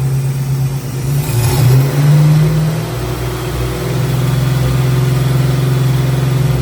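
Carbureted car engine idling, blipped to a higher speed about a second in, then settling back to a steady idle. With its freshly fitted carburetor and reset ignition timing it runs smoother than before.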